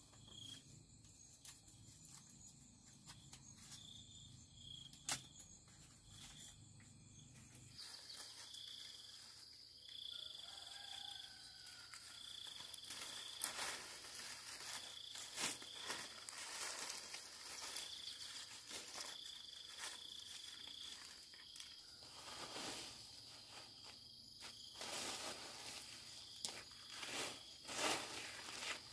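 Insects chirping in a repeating high pulse about once a second. From about eight seconds in, a steady high insect drone joins them. Scattered clicks and knocks sound over the top.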